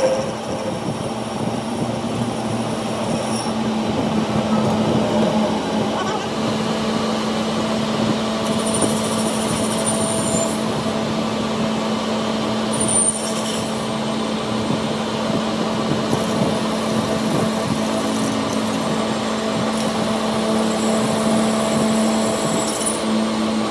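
A machine running steadily with a constant hum and mechanical noise, with a brief high-pitched squeal about halfway through.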